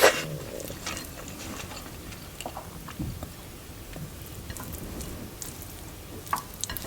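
Quiet chewing of a mouthful of chicken biryani, with a few faint clicks and small mouth sounds scattered through it.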